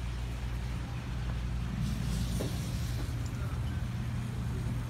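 A steady low mechanical hum, with a brief rush of noise about two seconds in.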